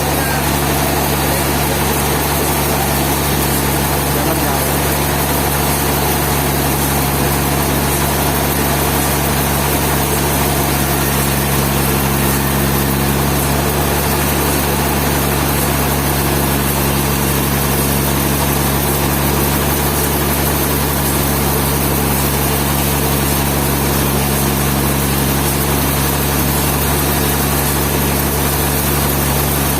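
An engine running steadily at a constant speed, with a steady low hum and no changes in pitch.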